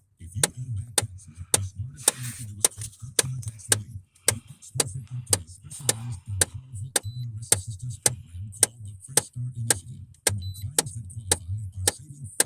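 Steady, even ticking from the GMC Envoy, about two clicks a second, over a low hum.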